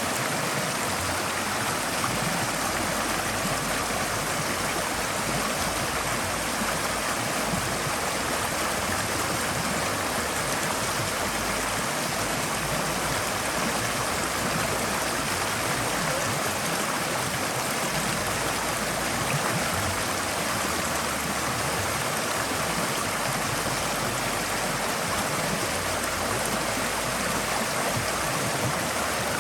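Forest stream flowing steadily, an even rushing of water over rocks with no breaks or separate events.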